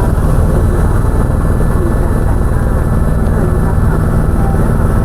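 Helicopter engine and rotor noise heard from inside the cabin: a loud, steady low drone with a fast pulsing underneath.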